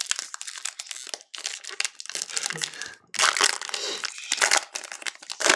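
Foil wrapper of a trading-card pack being torn open and crinkled by hands in nitrile gloves: a run of sharp crackles, loudest a little past halfway.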